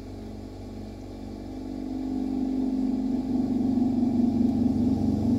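A steady mechanical hum, like a motor running, swelling louder from about two seconds in and cutting off abruptly near the end.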